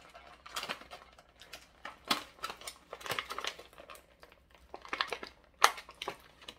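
Clear plastic packaging crinkling and crackling in the hands as an action figure is worked loose from its bag and zip ties, in irregular sharp crackles and clicks, the loudest a little after five seconds in.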